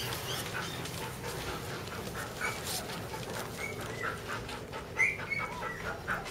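Border Collie puppies giving short, high squeaks and whimpers, one louder squeak about five seconds in.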